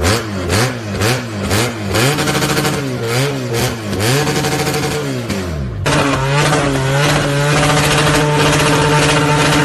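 Straight-piped motorcycle exhausts being revved with no muffler: quick rev blips about twice a second, then revs held high with a few rises and falls. About six seconds in it cuts to another bike held at a steady high rev.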